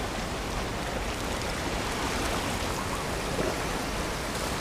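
Steady wash of small waves against a rocky shoreline.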